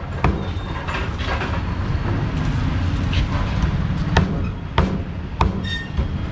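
Meat cleaver chopping crocodile meat on a round wooden chopping block: a sharp chop just after the start, lighter knocks, then three chops about two-thirds of a second apart later on, over a steady low rumble of traffic.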